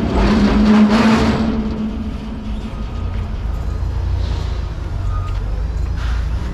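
Truck running, with a loud rushing noise and a steady hum for about the first second and a half, then settling into a steady low rumble.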